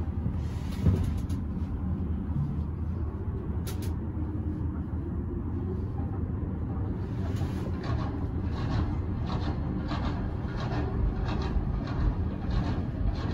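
Steady low rumble of a moving cable car gondola heard from inside the cabin, with a thump about a second in. From about halfway through comes a run of evenly spaced clacks, roughly two a second.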